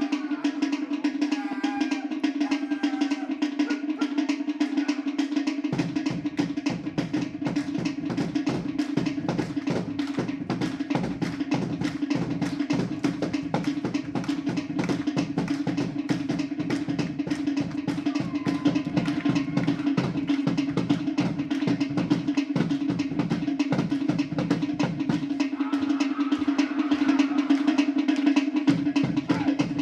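Music driven by fast, dense drumming over a steady held tone; a deep bass-drum layer comes in about six seconds in and drops out for a few seconds near the end.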